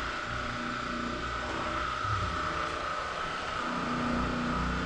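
A steady mechanical hum with a constant whine, with no pops or cracks.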